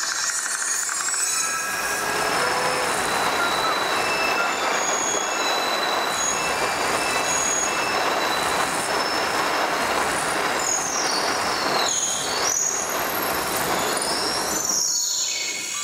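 Steady road and tyre hiss inside a moving car on a wet road, with short high squealing tones over it; the sound changes abruptly near the end.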